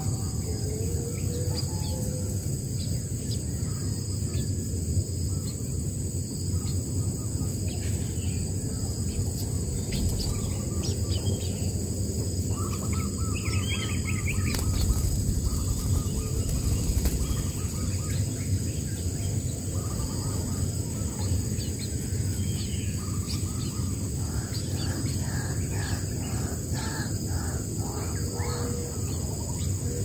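Scattered bird calls, with a run of quick repeated calls near the end, over a steady low outdoor rumble and a constant high-pitched hum.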